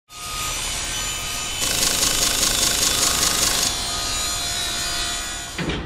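Sound-design effect for an animated logo reveal: a dense, rough noise that grows louder with a fast fluttering texture about one and a half seconds in, eases after about two seconds, and ends with a short low thump near the end.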